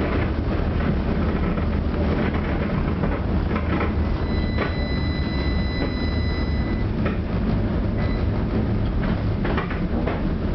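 Tram running on rails, heard from on board: a steady low rumble broken by scattered clacks from the wheels and track. About four seconds in, a thin high whine sounds for a couple of seconds.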